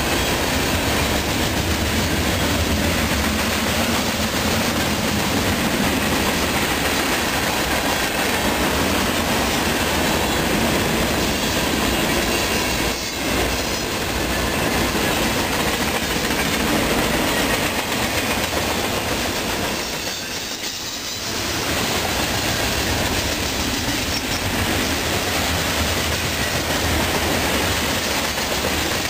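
CSX mixed freight train's cars rolling past close by: steady noise of steel wheels on the rails and the cars running over the track, briefly dipping twice.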